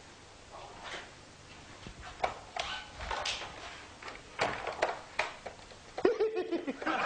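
Scattered light knocks and clicks of people moving about a room, with a short voice sound about six seconds in.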